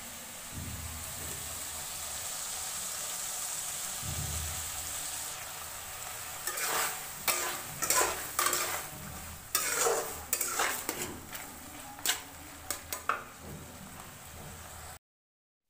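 Potato curry sizzling in a steel kadai: a steady frying hiss, then about halfway in a metal spatula scrapes and stirs it against the pan in about a dozen quick strokes.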